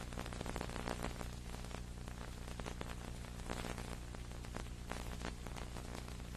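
Steady electrical hum with dense crackling static throughout: an audio dropout on the old tape recording, in place of the arena sound.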